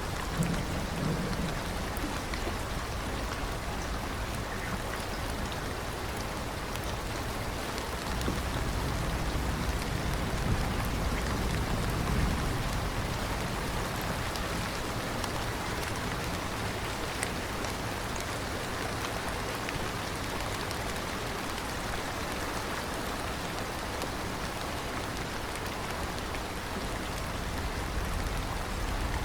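Steady rain falling, with low rumbles of thunder at the start, again about a third of the way in, and building near the end.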